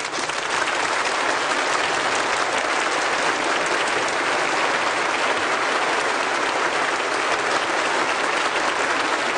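Concert audience applauding steadily, a dense even clapping that holds at one level throughout.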